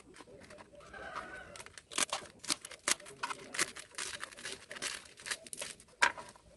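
Kitchen knife slicing fresh pechay (bok choy) stalks and leaves on a plastic cutting board: a quick, irregular run of crisp cuts and knocks against the board, several a second.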